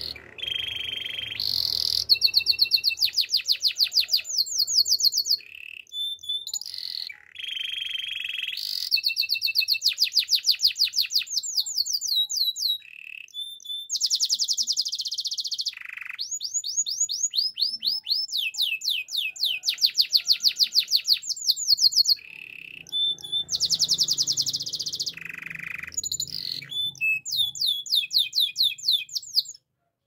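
Canary singing a long song of fast trills, about seven notes a second, phrases of rapidly repeated notes broken by short pauses. Some of the phrases are lower buzzy notes and some are quick falling sweeps. The song cuts off near the end.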